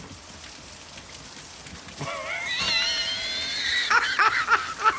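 Rain falling steadily, then about two seconds in a dog lets out a long, wavering whine, followed by a few short yelps near the end.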